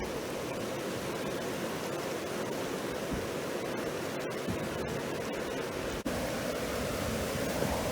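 Steady rushing of river rapids.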